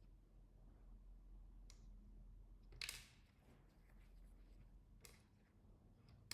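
Faint clicks and taps of a small screwdriver and screws as a laptop's back panel is screwed back on: a few scattered clicks, the sharpest about three seconds in, over near silence.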